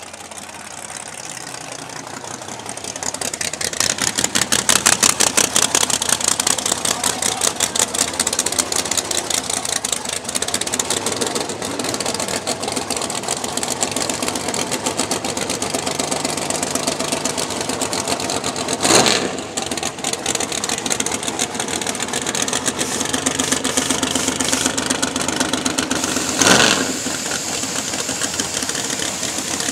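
Drag-race Fox-body Ford Mustang's engine running at a loud, choppy idle with a rapid pulsing beat. Twice in the second half, a short hissing blast of a nitrous purge cuts in over it.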